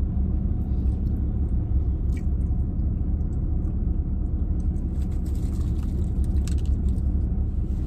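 Steady low rumble of an idling vehicle heard inside the cab, with crisp crunching and chewing of a potato-cube-crusted corn dog, mostly in the second half.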